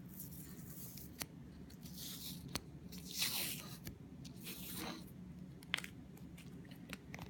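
Masking tape being peeled off a wooden piece in several short, crackly pulls, with a few sharp clicks of handling between them.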